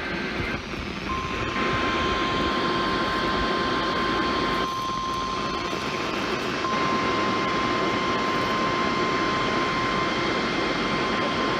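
NOAA Weather Radio 1050 Hz warning alarm tone comes on about a second in and holds steadily as a single pitch, sounding for a weekly test of the alarm. It is heard over a hiss of radio static, with fainter steady tones above it.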